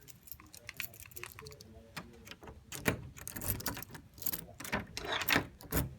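Irregular light clicking and clinking of small hard objects, with a few sharper clicks around the middle and near the end.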